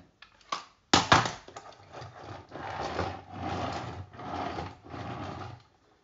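Plastic turbo brush vacuum nozzle knocked down onto a laminate floor about a second in, then pushed back and forth over the floor about four times, its wheels rolling and scraping in rising and falling strokes.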